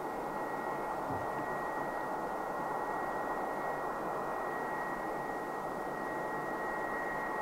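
Boeing 787-9's Rolls-Royce Trent 1000 turbofan engines running steadily at taxi power: an even hiss with a high whine held on one pitch.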